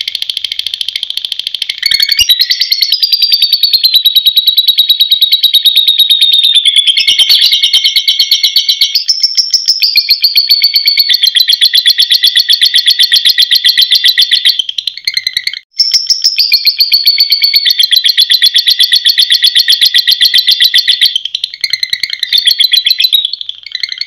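A lovebird's ngekek: a long, very rapid high-pitched chattering trill, held for many seconds with the pitch wavering. It breaks off briefly about two-thirds of the way through, then resumes in choppier bursts near the end.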